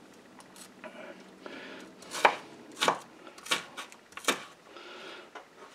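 Knife chopping red onion on a wooden cutting board: four clear knocks of the blade on the board, a little under a second apart, after a few lighter taps.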